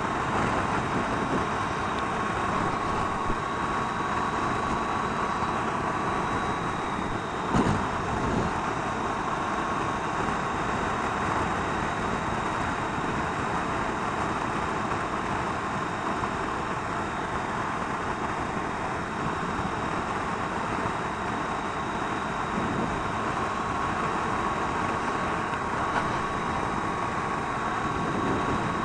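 Triumph Tiger 800 XRt motorcycle cruising at a steady speed: an even rush of wind and road noise with the inline-three engine running underneath, and a single short knock about seven and a half seconds in.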